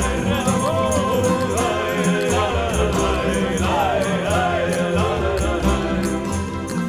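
Background music: a gliding melody over a steady bass line, with a regular high percussion beat.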